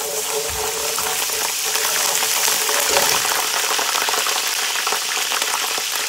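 Ginger-garlic paste sizzling and crackling in hot oil with browned onions in an aluminium pot, stirred with a metal slotted spoon. The sizzle swells over the first second or so as the wet paste hits the oil, then stays loud and steady.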